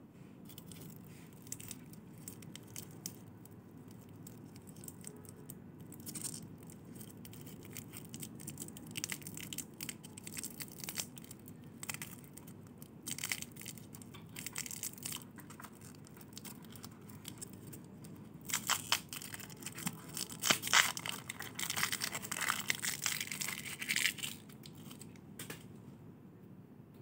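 Plastic and foil lollipop wrappers crinkling and tearing as they are twisted and peeled off by hand, in scattered crackles that build to a louder, denser burst of crinkling in the last third.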